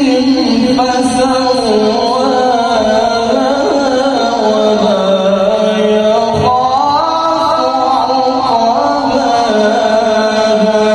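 A man's voice reciting the Quran in melodic tilawah style through a microphone and loudspeaker, holding long notes that slide up and down in pitch without pause.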